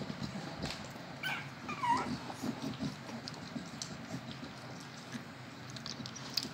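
A Staffordshire bull terrier puppy whimpers about a second in, a short wavering high whine, over low shuffling and small clicks.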